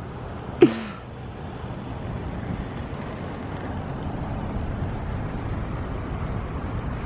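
Steady outdoor background noise, an even hiss over a low rumble. About half a second in, a voice gives one short, loud shout that falls in pitch.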